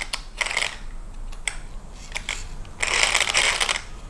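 Hard plastic parts of an RC car being handled: two stretches of rustling and scraping, a short one at the start and a longer one near the end, with scattered small clicks between.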